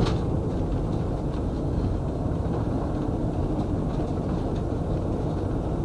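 Car driving: a steady low rumble of engine and road noise, with a brief knock right at the start.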